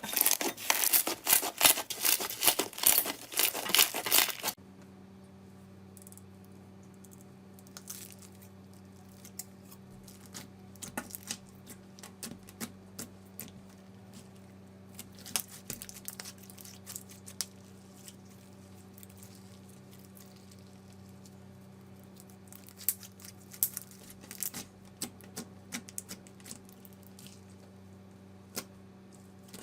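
Slime being squeezed and stretched by hand, giving a dense run of crackling pops. About four seconds in it cuts to a quieter stretch of scattered soft pops and clicks over a steady low hum.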